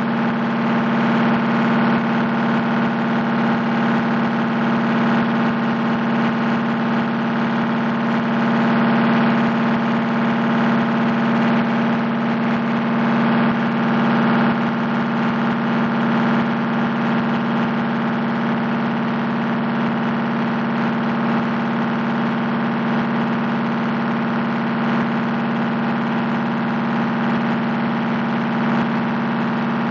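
Diesel engine running steadily at a constant speed, a loud, even drone with no revving or change.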